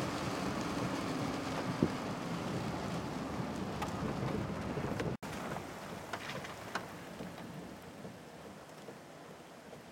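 Steady rain and wind noise from a severe thunderstorm, with a low mechanical hum under it in the first few seconds. The sound drops out for an instant about five seconds in, then goes on quieter, with a few scattered ticks.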